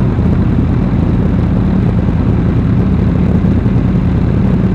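Motorcycle engine idling steadily at a standstill, an even low note with no revving.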